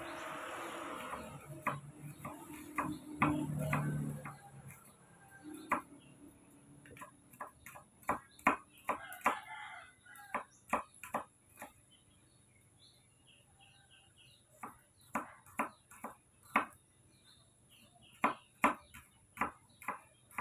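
Kitchen utensils clicking and tapping in irregular bursts, with a soft hiss in the first few seconds.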